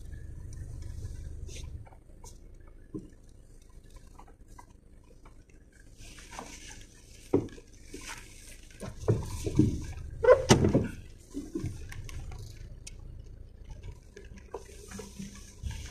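Raindrops ticking on a car's windshield and roof, heard from inside the cabin over the low rumble of the car moving slowly. A few louder knocks come around the middle.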